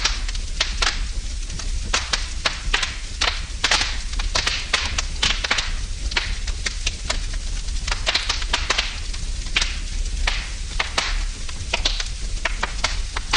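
Wood fire crackling in a fireplace: frequent sharp, irregular pops and snaps over a steady low rumble.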